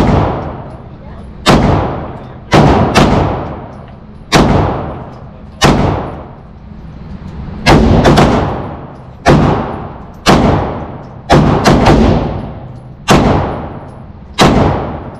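Handgun shots in an indoor shooting range: about fifteen sharp reports, fired roughly one a second with a few quick doubles, each followed by a long echoing tail.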